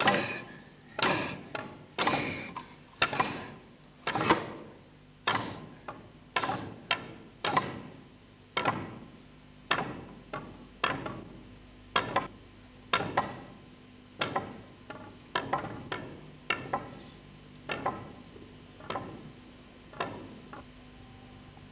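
Wooden staffs knocked on a stage floor: sharp knocks with a short ringing tail, at first about one a second, then quicker and uneven, growing fainter and stopping near the end.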